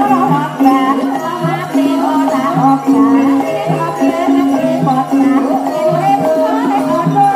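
Traditional Javanese gamelan-style music accompanying an Ebeg horse dance. A low two-note figure alternates steadily, about one pair of notes a second, under a wavering melody.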